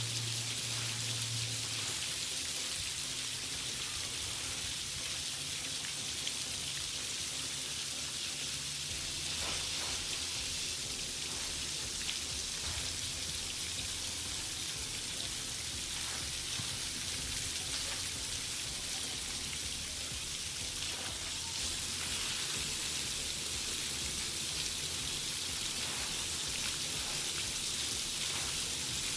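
Water from splash pad jets spraying and falling on wet pavement: a steady, rain-like patter.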